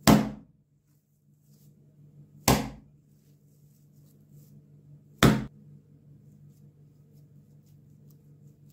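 A lump of raw minced-lamb mixture slapped down into a glass bowl three times, about two and a half seconds apart, each a heavy wet smack. Faint squishing of hands kneading the mince comes in between.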